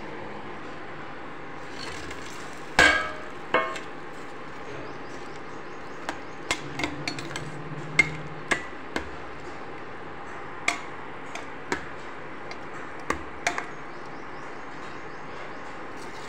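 Two loud ringing metal clangs, then a steel ladle knocking and clinking against the side of a steel cooking pot about a dozen times as pakoras are stirred into thick kadhi.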